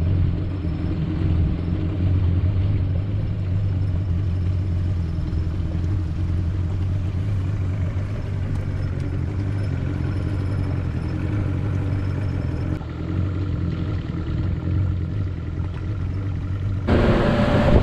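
Boat's outboard motor running steadily at low speed, a continuous low hum. About a second before the end a loud rush of wind and water noise comes in as the boat picks up speed.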